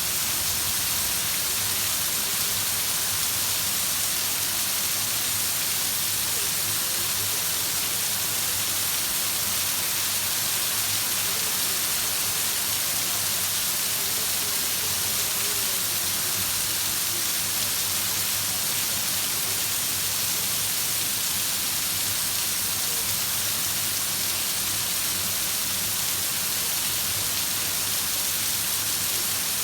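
Heavy rain falling in a steady, even hiss that does not let up.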